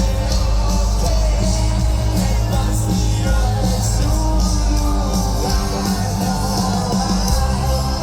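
Rock band playing with sung vocals over guitars, bass and drums, with some shouting voices in the mix.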